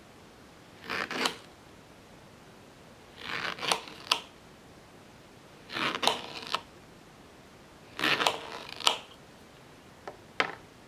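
A small knife slicing crosswise through an unpeeled banana, four cuts about two and a half seconds apart. Each cut is a short scraping stroke ending in a sharp click as the blade meets the hard surface beneath. Two quick clicks follow near the end.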